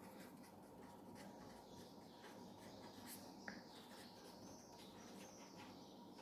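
Faint scratching of a pen writing on a sheet of paper held on a clipboard, in short irregular strokes, with one small click about halfway through.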